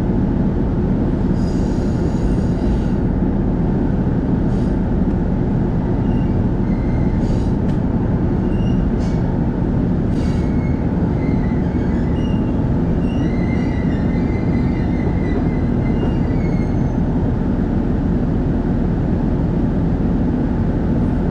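Inside a KiHa E130 diesel railcar rolling slowly into a station: a steady rumble of engine and running gear, with short high squeals from the wheels and brakes from about six seconds in until about seventeen seconds, and a few light clicks.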